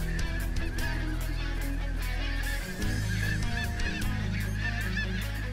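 Many snow geese calling at once: a dense, unbroken chorus of high-pitched, overlapping honks.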